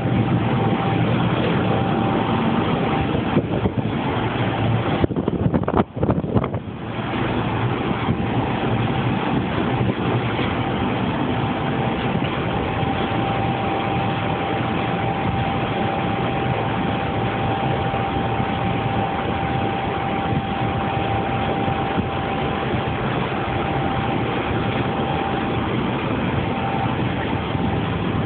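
Industrial blower running: a steady rush of air and motor noise with a thin, steady whine over it. The sound dips briefly about six seconds in, then carries on unchanged.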